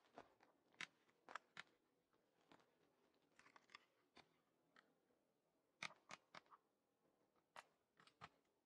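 Near silence, broken by a dozen or so faint, sharp clicks, some coming in quick little clusters.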